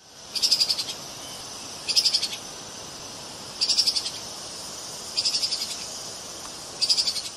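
Treeshrew (Tupaia) giving five short, rapidly pulsed high calls, evenly spaced about a second and a half apart, over a steady hiss.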